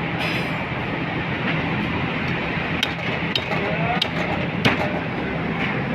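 Butcher's cleaver chopping through mutton legs, four sharp chops a little over half a second apart in the middle, over a steady background hum.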